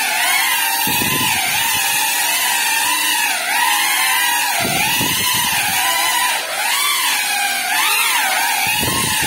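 GEPRC CineLog35 FPV cinewhoop drone's motors and ducted propellers whining, the pitch swooping up and down continually with the throttle as it flies. Three brief low rumbles come through, about a second in, near the middle and near the end.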